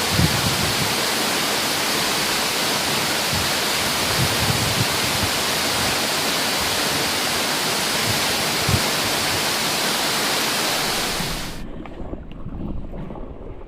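A steady, loud rush of water, even and hissing across all pitches, that cuts off abruptly near the end, leaving a quieter low rumble.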